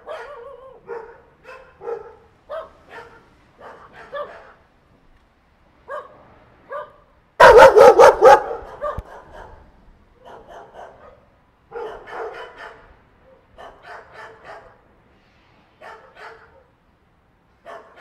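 Dogs barking in short, separate barks and yips, one or two a second with pauses between them. A much louder burst of rapid barks comes about halfway through.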